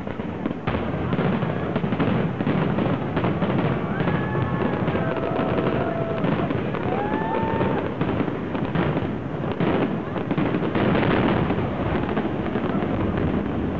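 Fireworks display bursting and crackling in a dense, continuous barrage of overlapping pops and bangs, with a few pitched gliding whistles or voices rising over it in the first half.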